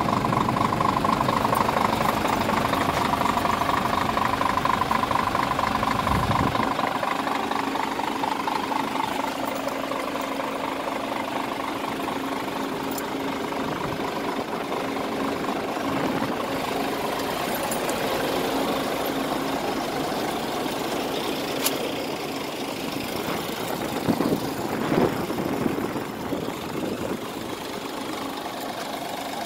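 Scania R450 truck's 13-litre straight-six diesel idling steadily, louder for the first six seconds or so, with a few short clicks near the end.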